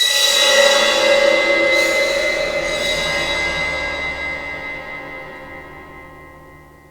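A sudden loud metallic crash, like a struck cymbal or gong, that rings on with many tones over a low rumble and slowly fades away over about seven seconds.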